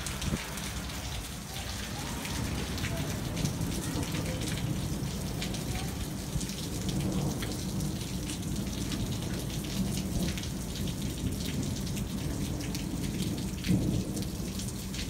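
Monsoon thunder rumbling low and long, rolling on for about twelve seconds over steady rain patter and drips.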